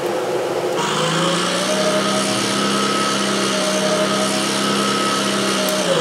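Simulated Sherman tank engine sound from an Armortek RC model sound system, played through a speaker: the engine note steps up to a higher rev about a second in, holds steady, then drops back near the end.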